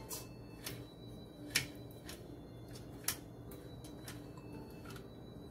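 Cookie press being adjusted: a few scattered sharp clicks from its metal plunger rod and plastic trigger handle, the loudest about one and a half seconds in.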